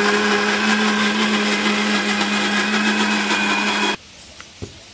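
Electric mixer grinder running at full speed, grinding grated coconut in its steel jar: a loud, steady motor hum with grinding noise that cuts off suddenly about four seconds in.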